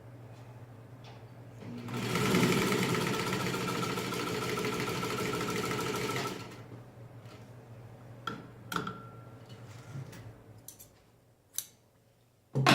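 Singer 15-90 sewing machine running at speed for about four and a half seconds, starting about two seconds in, stitching through five layers of marine vinyl. A few sharp clicks and knocks follow once it stops.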